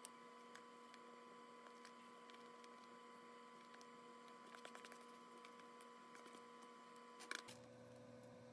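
Near silence with a steady electrical hum, and a few faint clicks, the clearest about seven seconds in.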